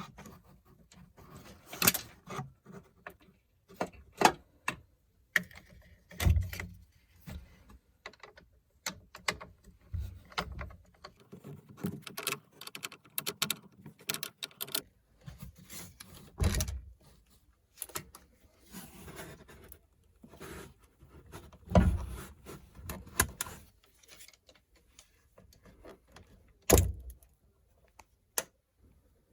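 Metal tools and battery hardware clinking and clicking irregularly during a car 12 V battery swap, with four heavier knocks spread through.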